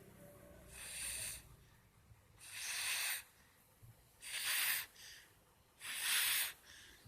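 A sleeping person snoring: four airy, hissing breaths, each a little under a second long, coming about every one and a half to two seconds, with quieter breathing between.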